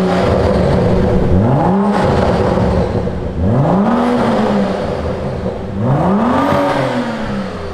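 A BMW 135i's turbocharged straight-six is revved three times while parked, breathing through a Berk Technology full-race catback exhaust. Each rev rises and falls back to a steady idle, and the last one goes highest.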